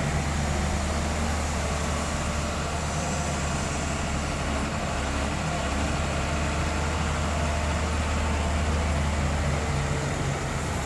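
Diesel engine of a Doosan 140 excavator running steadily, a continuous low drone.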